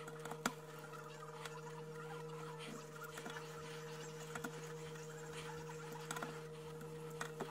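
A hand driver tightening the clamp nuts on a free-float rifle handguard: scattered faint ticks, with one sharper click about half a second in, over a steady low hum.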